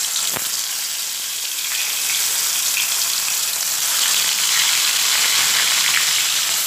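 Snakehead fish pieces sizzling as they fry in hot mustard oil in a kadai, with a short knock about half a second in as a piece goes in. The sizzle grows louder about two seconds in and again about four seconds in as more pieces are added.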